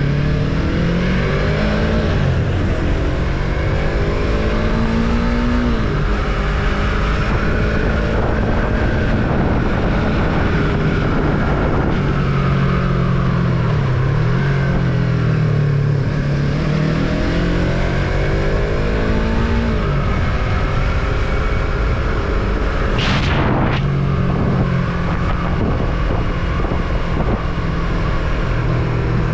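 Yamaha MT-03's parallel-twin engine running under way, its pitch climbing as it accelerates and dropping back at each gear change, several times over. A brief sharp hiss sounds about three-quarters of the way through.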